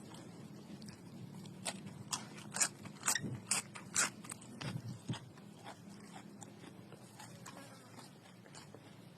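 Crunching bites and chewing of raw young pumpkin stems: a run of sharp crisp crunches in the middle of the stretch, then softer, fainter chewing. A steady low hum runs underneath.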